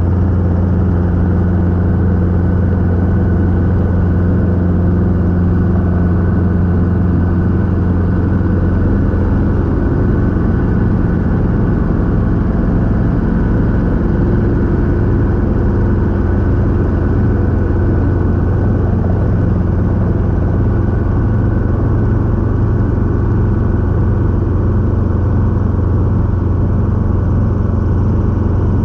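Robinson R22 helicopter in flight: its piston engine and rotor make a steady, loud drone, and the pitch of its tones shifts slightly about ten seconds in.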